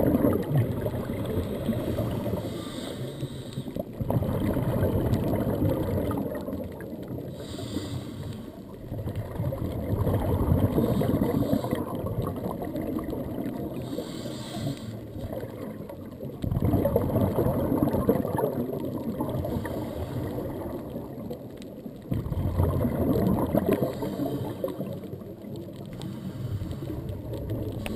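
A scuba diver breathing through a regulator underwater: a short hiss on each inhalation, then a long bubbling gurgle of exhaled air. The cycle comes about four times, roughly every five to six seconds.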